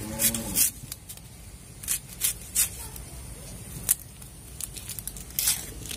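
An onion being cut with a blade: a few short, crisp cuts at uneven intervals, with a faint low hum underneath.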